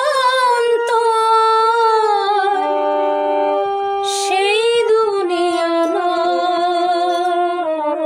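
A woman singing long, drawn-out notes with a wavering vibrato, accompanied by a harmonium's steady held reed notes. The voice breaks off briefly about halfway through, then goes on.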